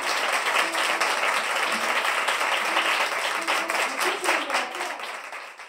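Audience applauding: dense clapping with a few voices underneath, fading out near the end.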